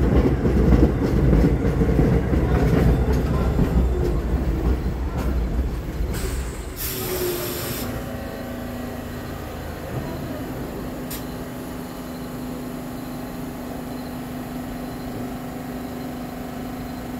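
An R44 subway train rolls into a station with its wheels rumbling on the rails, fading as it slows. It comes to a stop with a short hiss about seven seconds in, then stands with a steady hum.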